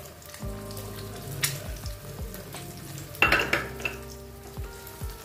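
Eggs sizzling as they fry in a black iron tawa (flat griddle) on a low gas flame, with a brief louder burst about three seconds in.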